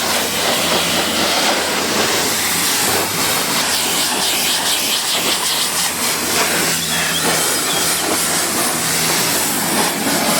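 High-pressure washer spraying water onto a car, a steady loud hiss of spray with the washer's motor humming low underneath.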